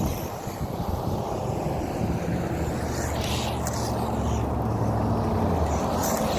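Fayee FY03 Desert Eagle RC truck driving over the ground, a steady rumble with wind on the microphone. A low hum swells about two seconds in and fades near the end.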